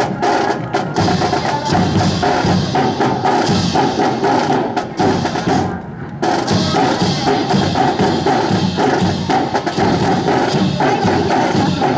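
Music with a percussive beat, mixed with sharp wooden clacks from a drill team's M1 rifles and their marching steps.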